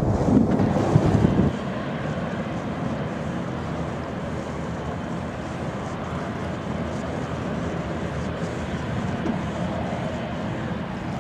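Low wind rumble on the microphone for the first second and a half, cutting off abruptly. Then the steady noise of an Embraer 190's two General Electric CF34-10E turbofans running at low power as the jet holds lined up on the runway.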